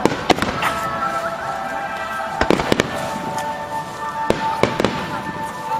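Fireworks shells bursting in sharp bangs, several in quick pairs, over music playing for a fireworks show set to music.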